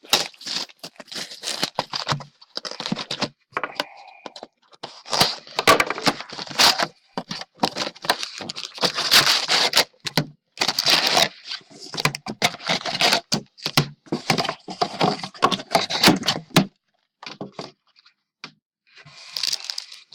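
Packaging of a sealed box of trading cards being torn and crinkled open by hand: irregular tearing, crackling and scraping of plastic wrap and cardboard, dying down briefly near the end.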